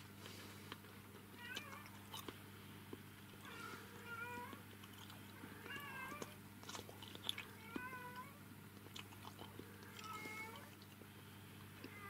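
Kittens meowing, about six short calls spaced roughly two seconds apart, with small clicks and rustles between them over a faint steady low hum.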